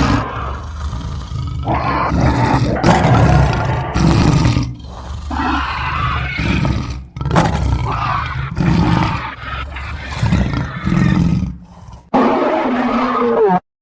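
Synthetic Tyrannosaurus rex roar sound effect, made by mixing a movie dinosaur roar with a lion roar. It plays as a series of long, loud roars with short dips between them, a brief gap near the end, then one last roar that cuts off suddenly.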